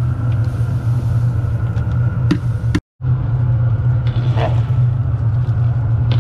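A steady, loud low rumble, broken by a sudden short gap about three seconds in. Soft sloshing from the long paddle in the stew kettle comes through about four seconds in and again near the end.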